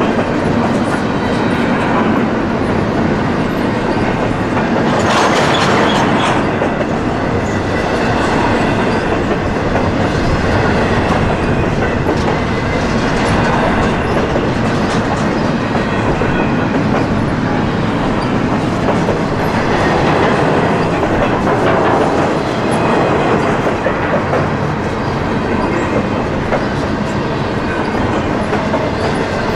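Railroad cars of a passing train rolling on the rails: a steady, continuous noise of wheels on track.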